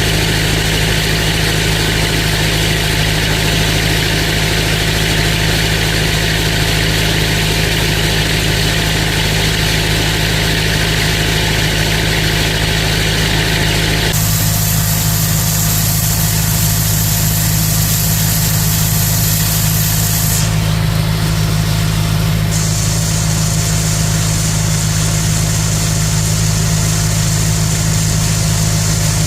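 Farm machinery diesel engine running at a steady drone. About halfway through, the higher hiss above it changes abruptly.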